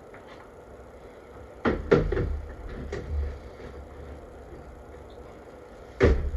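A few sharp knocks and clatters of hard objects being handled and set down on a work surface: a cluster a couple of seconds in, a lighter one soon after, and another knock near the end.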